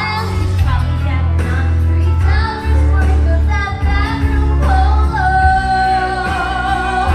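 A woman singing karaoke over a backing track with a strong bass line. She holds one long note near the end.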